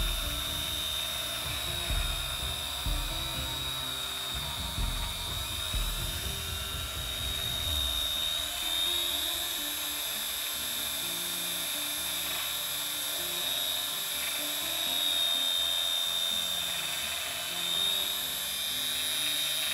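BG-5158B mini bench drill spinning a fine bit through a copper strip, giving a steady high-pitched motor whine. Background music plays underneath.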